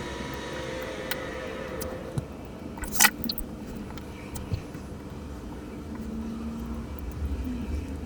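Small parts of an analog wristwatch being handled with tools during disassembly: a few light clicks and taps, with one sharper click about three seconds in, over a steady low hum.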